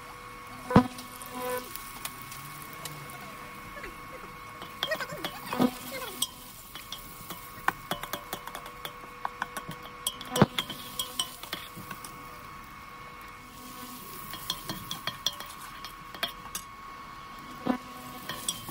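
Perforated stainless-steel ladle stirring onions and ginger-garlic paste in a stainless-steel pan, with many light clicks and scrapes. Four louder ringing knocks of the ladle against the pan come about a second in, near six seconds, near ten seconds and near the end, over a faint sizzle of frying and a steady faint hum.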